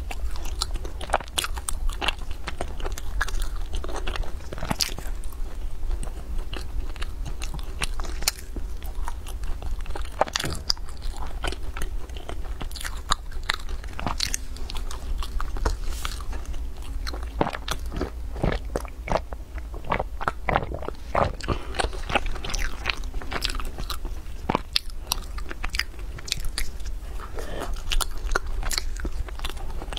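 Close-miked biting and chewing of flaky egg-yolk pastries: a dense, irregular run of crisp crackles and crunches as the layered crust breaks, with softer chewing between, over a steady low hum.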